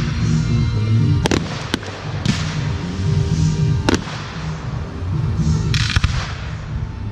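Fireworks going off: several sharp bangs of aerial shells, some followed by crackling, over music.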